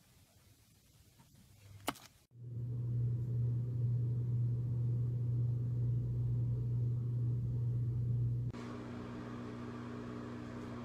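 Faint room noise with a single click about two seconds in, then a steady low mechanical hum that starts suddenly. Near the end it drops in level and changes to a slightly higher, steady drone.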